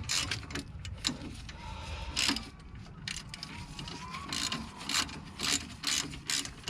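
Irregular metallic clicks, taps and light scrapes of hand tools and brake caliper parts being worked, while a stuck caliper slide pin is freed.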